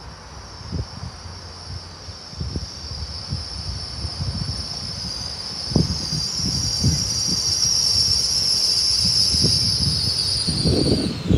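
Hitachi Class 802 passenger train approaching and running past: a steady high-pitched whine grows louder as it nears and breaks off near the end. Underneath are a low rumble and irregular knocks from the wheels, which get stronger as the carriages pass.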